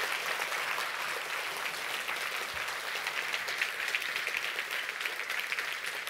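Audience applauding, many people clapping together at an even level.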